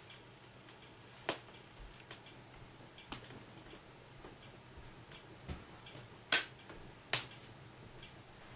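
A few sharp, irregularly spaced clicks, the loudest about six seconds in, over a faint steady low hum.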